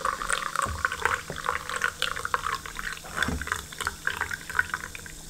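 Monster Ultra, a carbonated energy drink, pouring from a can into a glass: a stream of liquid with a dense crackle of fizzing bubbles that slowly gets fainter toward the end.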